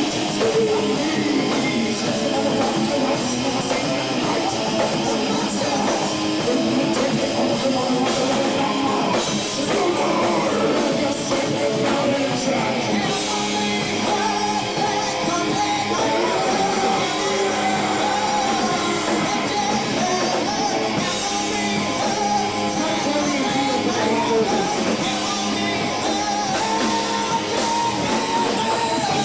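Heavy rock band playing with guitars and a drum kit, carrying a wavering lead melody that bends up and down in pitch.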